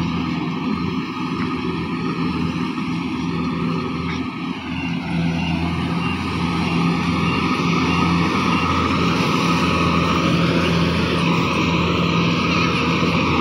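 Rice combine harvester's engine running steadily, getting louder from about halfway through as the machine comes nearer.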